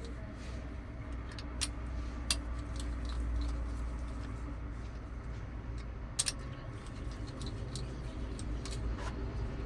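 Engine idling with a steady low hum, with a few sharp metallic clicks over it.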